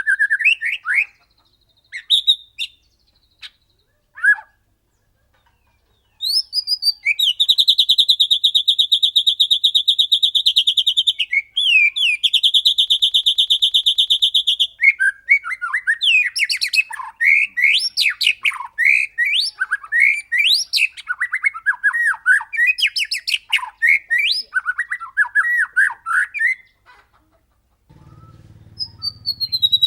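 White-rumped shama singing: a few short whistled calls, then two long, very rapid, even trills, then a fast run of varied whistled and warbled phrases. Near the end the song pauses briefly, a low hum comes in, and the singing starts again.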